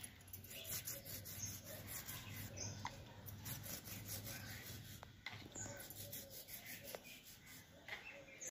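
Toothbrush scrubbing a wet colouring solution into a braided jute carpet: the bristles rasp against the jute fibres in repeated quick strokes.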